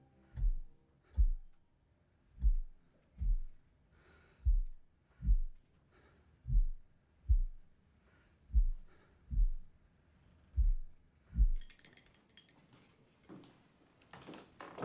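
Slow, heartbeat-like low double thumps, a pair about every two seconds, seven pairs in all, stopping about three-quarters of the way through. Near the end, faint scratching of a pen on paper.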